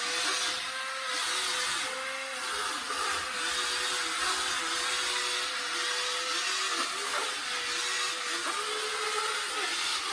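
Toy wall-climbing remote-control car's suction fan whirring steadily with a hiss, while its small drive motors whine up and down in short spurts as it is driven.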